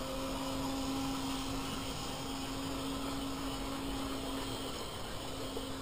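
Toy train running around its track, its small electric motor giving a steady hum over a low rattle of wheels.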